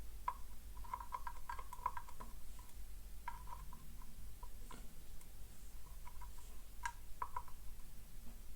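Light, irregular ticks and clicks of small metal tools working a MOSFET loose on a circuit board during desoldering, over a steady low hum.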